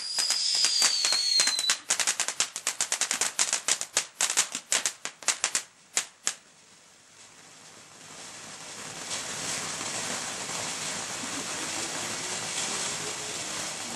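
Ground firework fountain burning, crackling rapidly for about six seconds, with a short falling whistle near the start. After a brief lull it settles into a steady hiss of spraying sparks.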